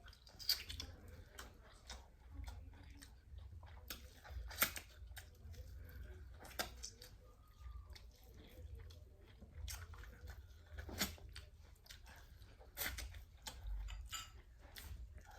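A person chewing and biting food close to the microphone: wet mouth sounds broken by irregular sharp clicks and smacks, over a low steady hum.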